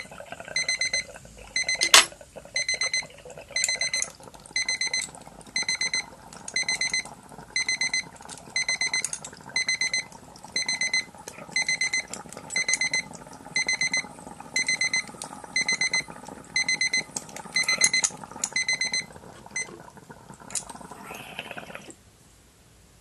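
Digital timer alarm beeping in quick clusters of high beeps, repeating a little under once a second, and stopping about 20 s in. Underneath, the water in a glass dab rig bubbles steadily as he inhales through it, ending a couple of seconds later, with one sharp click about two seconds in.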